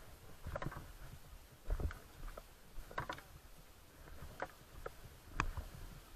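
Footsteps on loose rocks and stones: irregular scuffs and knocks, roughly one a second.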